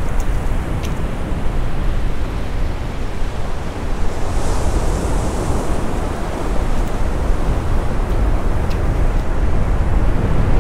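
Surf washing onto a sandy beach, with wind buffeting the microphone: a steady rush of noise, heaviest at the low end, with a brief higher hiss about halfway through.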